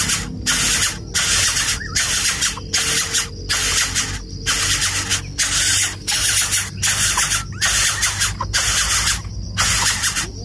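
Greater coucal nestling giving repeated harsh hissing calls, a bit more than one a second.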